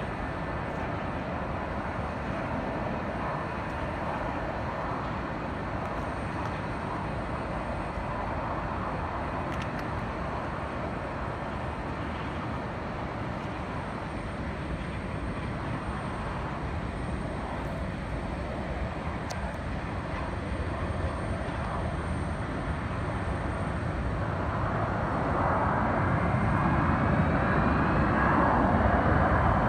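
Jet airliner engine noise across the airfield, a steady rushing sound that grows louder over the last few seconds as a rising engine whine comes in.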